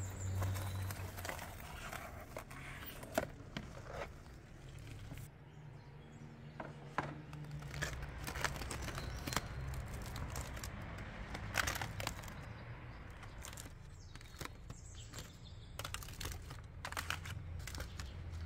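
Aluminium foil crinkling and rustling in short, irregular bursts as a foil package around a roasted lamb neck is pulled open by hand, over a low steady hum.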